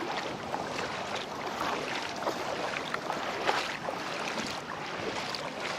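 Feet wading through shallow floodwater, with steady splashing and many small splashes throughout.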